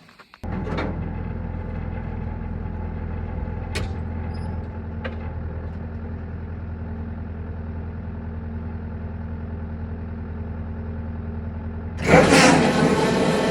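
Skid steer engine running steadily at idle, starting abruptly about half a second in; about twelve seconds in it turns suddenly much louder and harsher.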